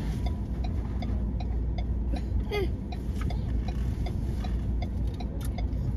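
Car heard from inside the cabin: a low engine and road rumble, with a steady ticking of about three clicks a second from the indicator relay.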